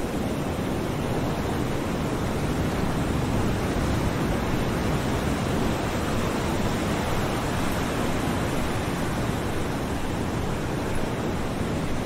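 Ocean waves washing against a shore, heard as a steady, even rush of noise with no single wave breaking out above the rest.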